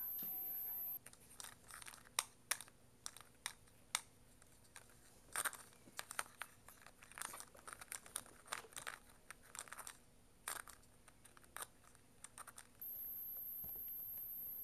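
Kitten scrabbling in a cardboard box tunnel: an irregular string of sharp scratches, taps and rustles of claws and paws on cardboard. A steady hiss runs for the first second and returns near the end.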